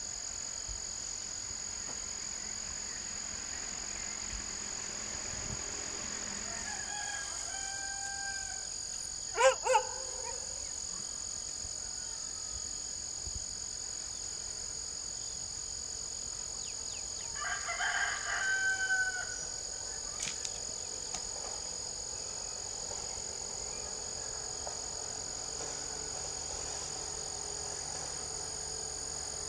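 A rooster crows twice, about seven seconds in and again about ten seconds later, over a steady high-pitched insect drone. Two sharp knocks just after the first crow are the loudest sounds.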